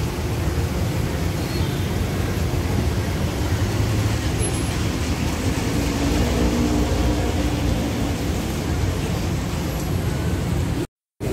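Steady street noise dominated by the low rumble of road traffic; it cuts out completely for a moment near the end.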